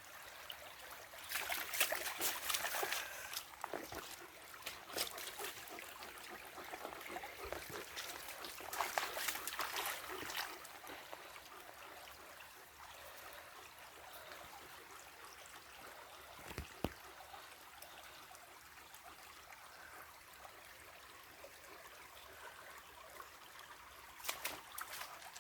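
Shallow river trickling steadily over stones, with louder spells of splashing in the water about a second in, around nine to ten seconds in, and near the end.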